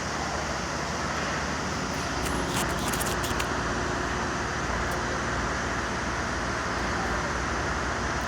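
Steady vehicle engine rumble with a hiss, swelling slightly about two seconds in, with a few faint clicks.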